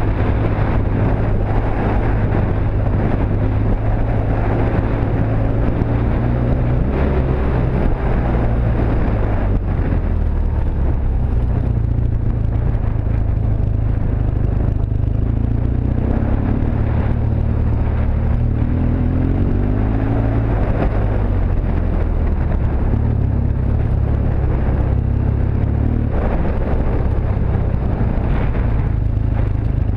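BMW R1200GS Adventure's boxer-twin engine running at low trail speed, its pitch dipping and rising a few times past the middle as the throttle changes. Wind noise rushes on the bike-mounted microphone throughout.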